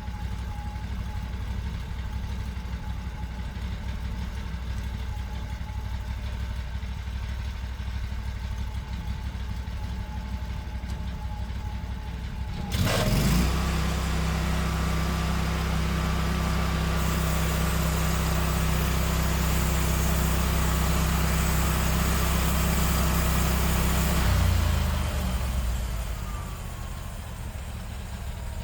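Sawmill's engine idling steadily, then throttled up about 13 seconds in to a louder steady run, adding a higher hiss from about 17 seconds, before dropping back toward idle near 25 seconds.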